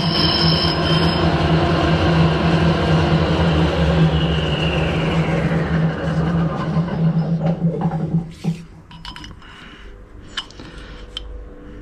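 Harrison metal lathe running with a tool cutting a cylinder-cover casting: a steady hum and cutting noise. The motor's pitch falls as the lathe winds down, and it stops about eight seconds in. After that come a few light metallic clicks as a caliper is set against the part.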